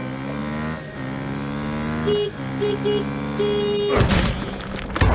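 Vehicle engine sound effect running with a slowly shifting pitch, over which a horn toots four times: one short, two quick short ones, then a long one. About four seconds in, a loud rush of noise takes over.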